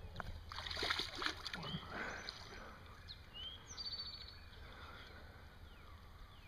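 Boots splashing and sloshing through shallow, muddy creek water as a person wades in and reaches into it, loudest in the first two seconds and quieter after. A few short high chirps sound above it.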